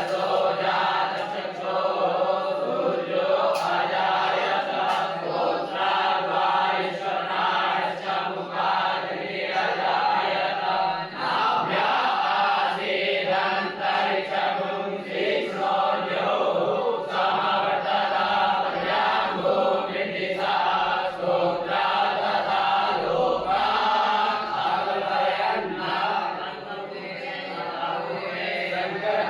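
A group of voices chanting mantras together in a steady, continuous recitation.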